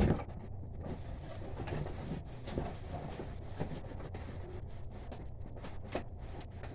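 Cardboard and plastic packaging being handled: scattered knocks, scrapes and rustles, the loudest a knock at the very start, over a steady low rumble.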